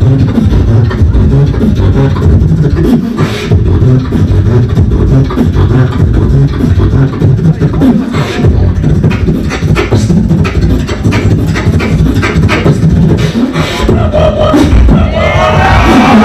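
Live beatboxing into a hand-cupped microphone, amplified through a PA: heavy deep bass kicks under sharp snare-like clicks in an unbroken rhythm. Near the end a wavering pitched sound joins in.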